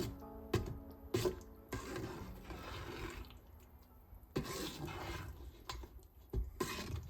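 Water running or pouring in two stretches, with scattered clicks and knocks.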